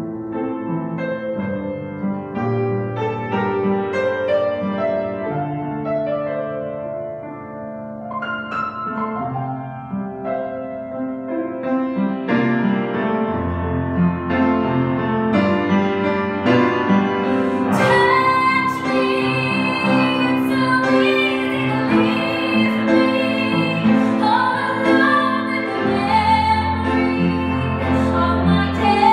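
A woman singing a slow show-tune ballad with piano accompaniment. The song builds about halfway through: deeper piano bass notes come in, and the voice grows louder and fuller, with vibrato.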